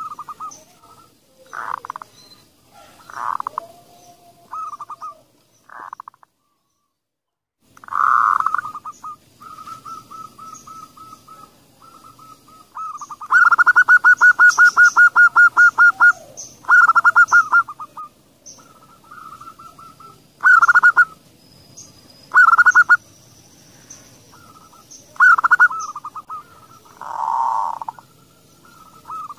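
Zebra doves (perkutut) cooing: short phrases of quick staccato coos, repeated with pauses, with a loud, fast rattling trill a little before the middle. The sound cuts out completely for about a second and a half near the quarter mark.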